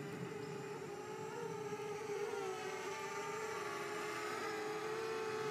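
Simtoo Fairy quadcopter's propellers buzzing in flight: a steady whine with a slight waver in pitch, growing gradually louder.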